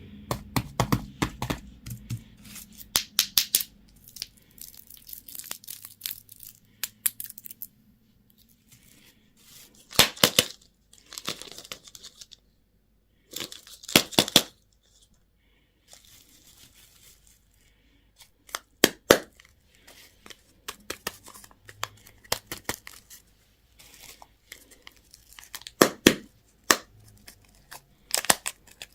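Candy wrappers being torn open and crinkled, in bursts of sharp crackling with pauses between them.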